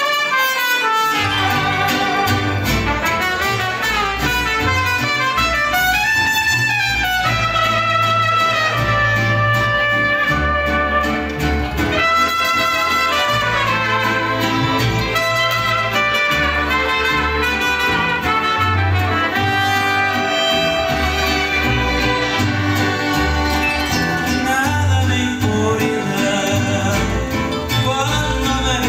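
Mariachi band playing live: trumpets and violins carry the melody over the guitarrón's bass and strummed vihuela and guitar.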